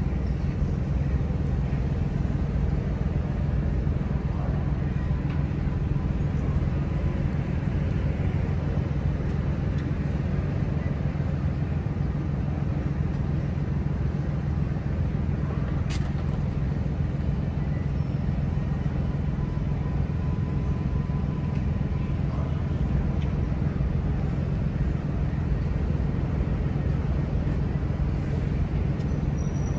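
A steady low engine hum that does not change, under faint street noise.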